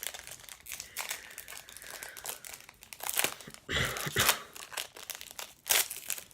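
A football card pack's wrapper crinkling as it is torn open and the cards are handled, in irregular crackles. The loudest crinkling comes about four seconds in and again near the end.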